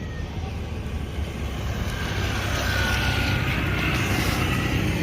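Bus driving past, its engine and road rumble growing louder about halfway through.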